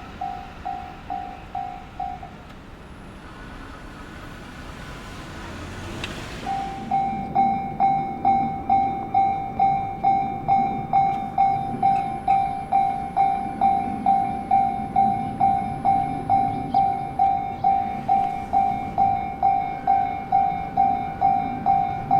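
Japanese level-crossing warning bell ringing, an electronic ding at about two strikes a second. It stops about two seconds in, a rushing noise swells and cuts off near six seconds, then the bell starts again, louder, over a low rumble.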